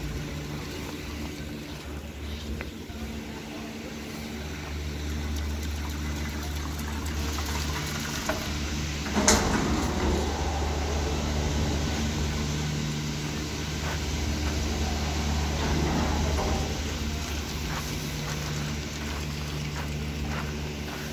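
Boat engine running steadily under a continuous rush of water, with one brief sharp noise about nine seconds in.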